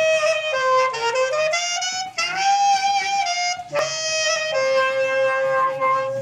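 Saxophone playing a melodic phrase in three short runs of notes, the last settling on one long held note.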